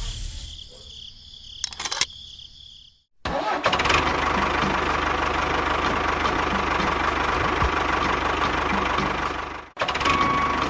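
A motor starts about three seconds in, runs steadily with a faint high whine for about six seconds, then cuts off suddenly; a similar running sound starts again near the end.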